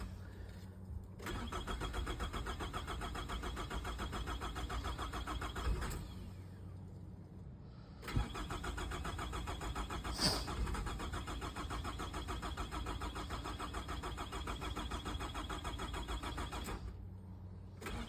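2006 Nissan Altima engine cranking on its starter without catching, a crank-no-start: two long cranking spells, the first about five seconds and the second about nine, with a short pause between. A brief sharp sound stands out about ten seconds in.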